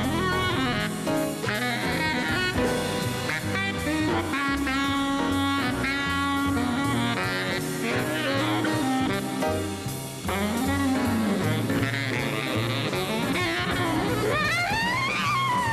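Baritone saxophone playing a jazz solo over bass and drums, in fast runs of notes, with a high swoop that rises and falls near the end.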